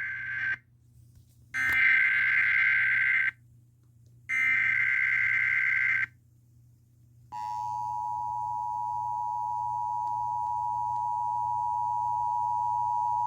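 Emergency Alert System header and attention signal: the tail of one SAME data burst and then two more, each a harsh warbling screech about a second and a half long with a short gap between, followed about seven seconds in by the steady two-tone EAS attention signal, which gets slightly louder. The header encodes the tornado watch alert, and the attention tone announces the spoken message to come.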